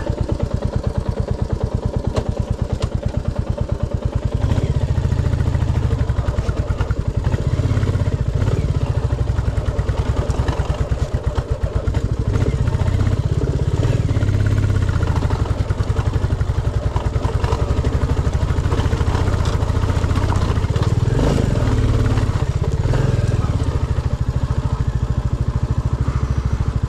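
Royal Enfield Classic 350's single-cylinder engine running with an even run of firing pulses. Its low rumble gets louder about four and a half seconds in and stays up.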